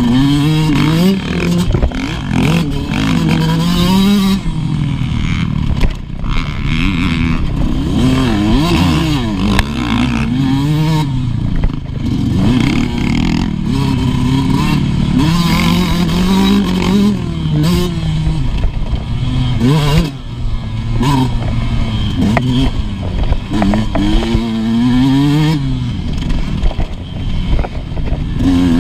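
Motocross dirt bike engine heard from on board, its pitch climbing hard and falling back over and over as the rider accelerates, shifts and rolls off through the track's corners, with knocks and wind noise mixed in.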